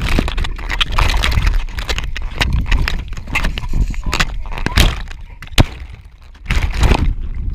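Water balloons rubbing and knocking against each other and against the camera at close range: irregular rubbery squeaks, clicks and thuds over a low handling rumble, with a short lull about six seconds in.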